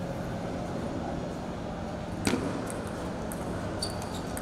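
Table tennis rally: the ball clicking sharply off the rackets and the table, starting about halfway, probably with the serve as the loudest hit, over a steady low hum.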